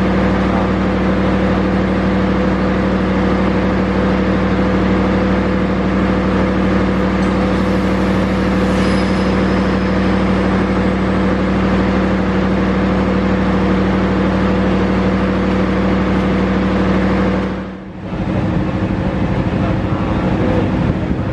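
Diesel engine of a train running steadily at a station, a loud even hum with a fixed pitch. It dips for a moment near the end, then carries on.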